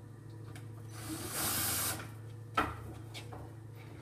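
Cordless drill-driver running for about half a second, driving a door mount screw into the wooden spice-rack door, then a sharp knock about a second later and a few lighter clicks.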